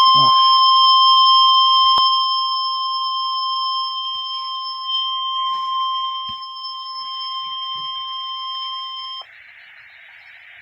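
NOAA Weather Radio warning alarm tone: a single steady 1050 Hz tone, slowly weakening, that cuts off abruptly about nine seconds in and leaves radio static hiss. It is the signal that an urgent warning, here a severe thunderstorm warning, is about to be read.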